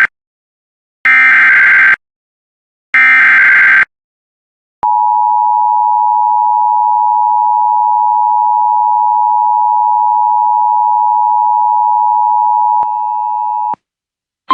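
Emergency Alert System broadcast: the last two bursts of the SAME digital header, each about a second of harsh data screech. After a short gap comes the EAS two-tone attention signal, a steady dual tone near 853 and 960 Hz, held for about nine seconds. It drops slightly in level shortly before it cuts off.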